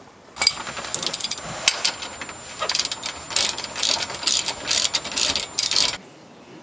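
Socket ratchet wrench clicking in repeated short runs as it turns a shock absorber's lower mounting bolt. The clicking stops suddenly about six seconds in.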